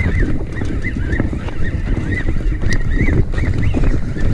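Wind buffeting the microphone, with a run of short, high chirping squeaks repeating a few times a second throughout.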